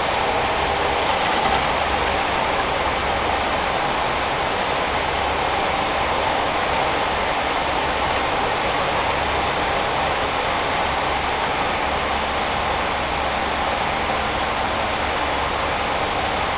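Steady rushing noise of water in a wastewater treatment tank, with a low, uneven rumble underneath.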